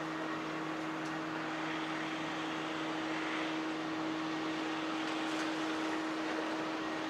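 Steady mechanical hum: a constant low drone over an even wash of background noise, unchanging throughout.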